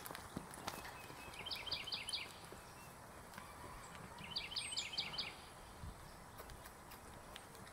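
A horse cantering on sand, its hoofbeats faint, soft thuds. A bird sings twice, each time a quick run of about five high notes, about one and a half and four and a half seconds in.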